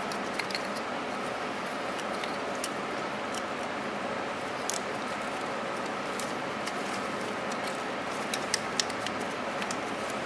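Light metallic clicks and taps of a hand wrench working the engine-computer bracket bolts on an intake manifold, scattered and irregular, with a few bunched close together near the end. A steady background hum runs underneath.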